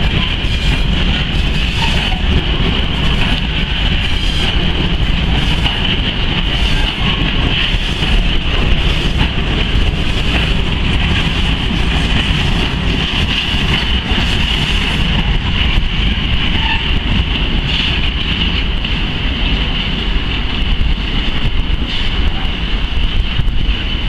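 A long rake of bulk cement tank wagons rolling past, steel wheels clicking over rail joints and pointwork, with a steady high-pitched wheel squeal throughout.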